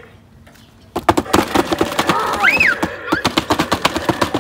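Toys clattering and knocking as they are handled, a quick run of clicks and knocks starting about a second in, with one short high squeal that rises and falls about halfway through.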